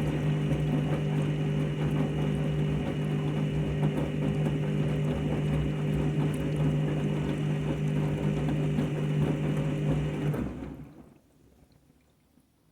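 Washing machine running: a steady motor hum with a fine rattle as the drum turns, dying away about ten seconds in.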